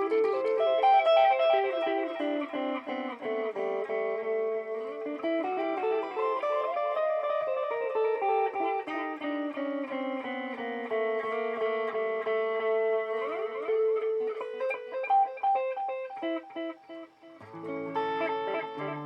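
Electric guitar played through a BOSS DD-8 digital delay pedal in Warp mode. Layered notes repeat and blur into each other, with several smooth sweeps up and down in pitch. A short lull comes near the end before new, lower notes are struck.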